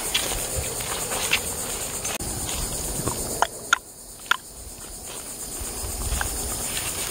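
Steady high-pitched insect chorus with footsteps through grass and several sharp clicks, the three loudest close together near the middle.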